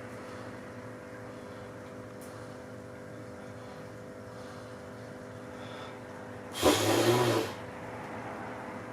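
A steady hum with several fixed tones, with one short, loud breath or snort through the nose about two-thirds of the way in.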